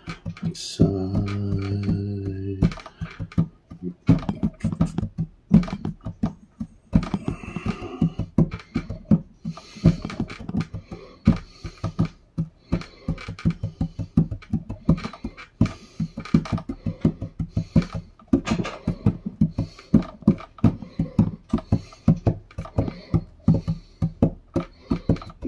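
Hands drumming a fast, steady rhythm of taps and thumps on a tabletop, with one short held sung note about a second in.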